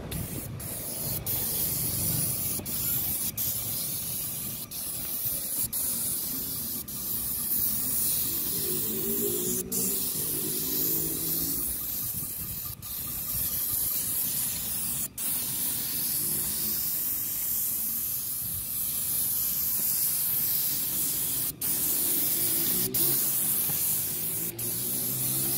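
Spray gun hissing steadily as it sprays acrylic resin coating onto roof tiles, with many brief momentary breaks in the spray. A lower rumbling layer comes and goes underneath.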